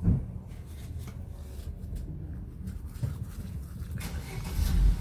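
Folded toilet paper rubbing across a smartphone's glass screen as it is wiped clean, the soft scratchy rubbing coming up about four seconds in, over a low steady background hum.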